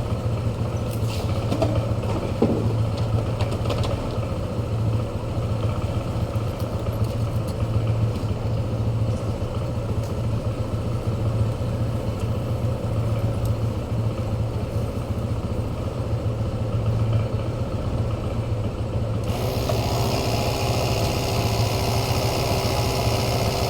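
A motor or engine running steadily with a low hum; about nineteen seconds in, higher tones join it.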